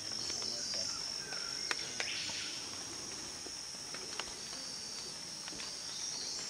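Forest insects, crickets or cicadas, keeping up a steady high-pitched chorus, broken by a few sharp clicks.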